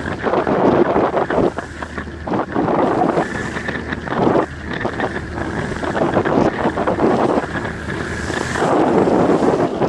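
Wind buffeting the microphone in uneven gusts on a fishing boat at sea, over a steady low hum.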